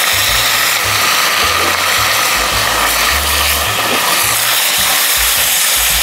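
Chunks of kangaroo meat searing in a very hot cast-iron pot: a steady, loud sizzle as the meat is browned to seal it.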